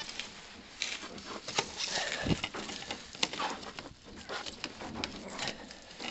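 Plastic water pipe being pushed and pulled through a hole and along a trench, with irregular scrapes, scuffs and clicks as it rubs on brick, rubble and soil and is handled.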